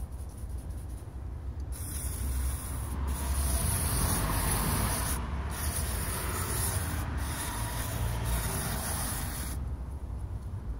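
Aerosol carburettor cleaner hissing out of its spray can into a dirty throttle body to flush off carbon gunk. The spray starts about two seconds in and runs for most of the rest, broken by several brief pauses, and stops shortly before the end.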